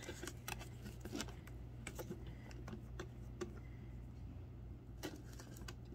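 Faint, irregular small clicks and taps as a plastic cap is twisted off a small bottle of nail-dip liquid and the bottle is handled.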